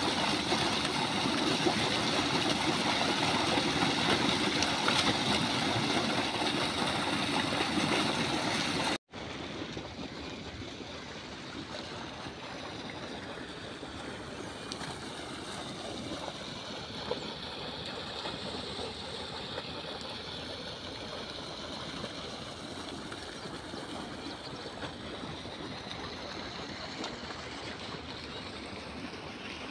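Water gushing steadily from a pump's discharge pipe and churning into a fish pond. About nine seconds in, it cuts off abruptly to a much quieter steady rushing noise.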